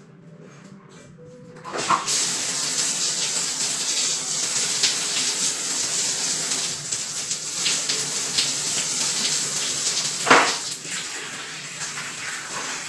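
Water rushing loudly into a jacuzzi tub, starting suddenly about two seconds in. A sharp knock comes about ten seconds in, after which the rushing runs a little quieter.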